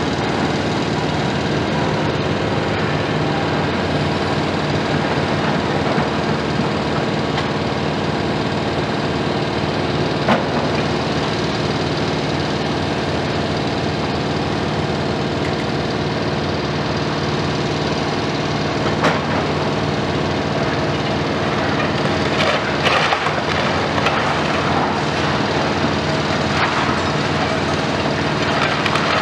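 Heavy diesel construction machinery running steadily while a long-front demolition excavator tears at a building. Sharp cracks come about 10 and 19 seconds in, and a cluster of crunching, clattering debris comes in the last third.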